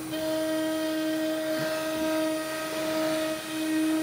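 Automatic-tool-change CNC router's spindle engraving wood: a steady high whine over cutting noise, with a second, higher tone coming in just after the start.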